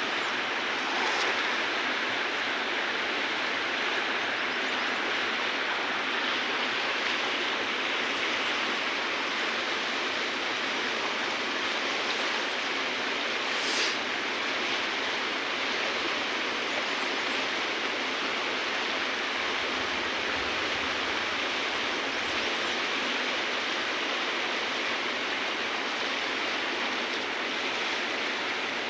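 River water rushing steadily, an even hiss with one short click about halfway through.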